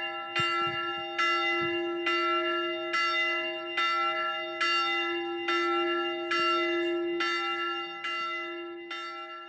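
Church bell struck over and over, a little faster than once a second, each stroke ringing on over a steady low hum and the strokes fading away near the end.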